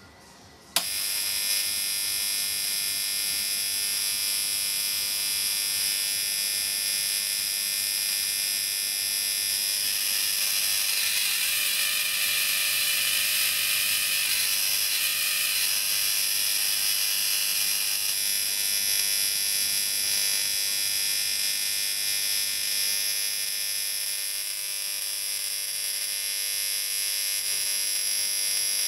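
High-voltage discharge through magnesium shavings: a loud, steady electric buzz with crackle, switched on with a click about a second in. It grows harsher for several seconds in the middle.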